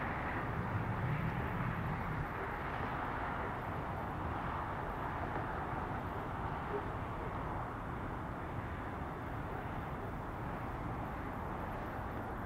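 Steady outdoor background noise, a hiss and hum with a low rumble swelling briefly in the first couple of seconds. The Falcon 9 itself is far too distant to be heard.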